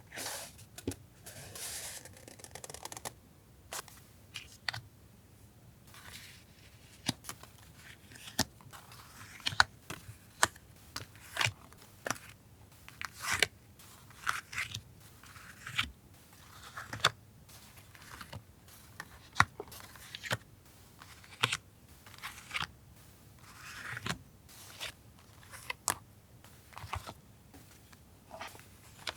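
Paper stationery goods being handled on a desk: intermittent rustling and crinkling with many small sharp taps and clicks.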